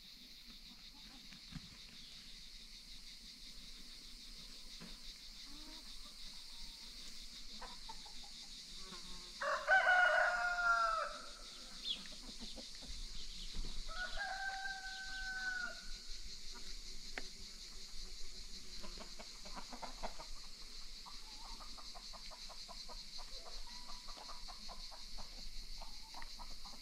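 Free-range chickens: a rooster crows once, loudly, about ten seconds in, and a shorter fowl call follows a few seconds later, with soft clucking and scratching between. A steady high insect hum runs underneath.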